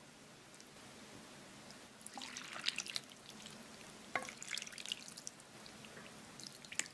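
Broth poured into a bowl of udon noodles: liquid splashing and dripping in a few short bursts, with one sharp knock about four seconds in.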